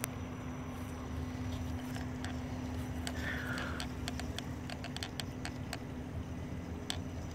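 Electric RC crawler truck driving slowly: a steady low motor and drivetrain hum with scattered sharp clicks and ticks through the middle.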